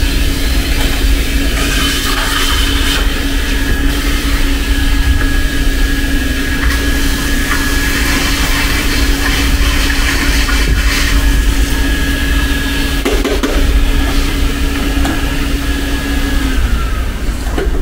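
Canister shop vacuum running steadily, a motor drone with a high whine. It is switched off near the end and the whine drops away.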